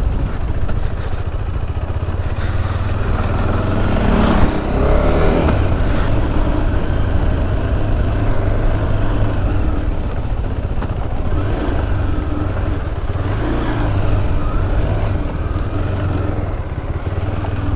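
KTM 390 Adventure's single-cylinder engine running steadily as the bike is ridden. About four seconds in, its note rises briefly and there is a single sharp knock.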